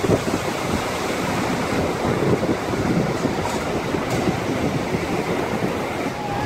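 Steady rushing noise at a constant level, with no single sound standing out.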